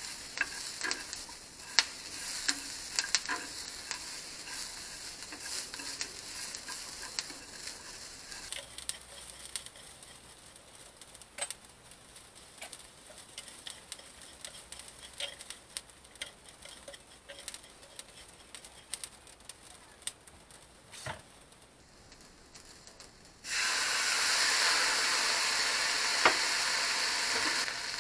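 Garlic scapes and dried anchovies sizzling in a frying pan as they are stirred with wooden chopsticks, with scattered clicks of the chopsticks against the pan. Near the end the sizzle suddenly turns much louder as liquid seasoning hits the hot pan.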